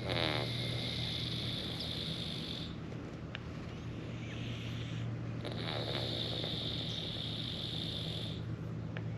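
Sleeping domestic cat snoring: two long, hissy breaths about three seconds each, the second starting a little over five seconds in, over a steady low hum.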